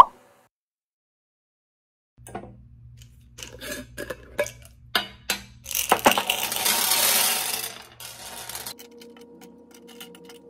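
A short sharp sound at the very start, then flat glass gems clicking against each other in a plastic bag. About six seconds in they pour out onto a glass tabletop in a dense clatter lasting about two seconds, followed by single gems clinking as they are spread out by hand.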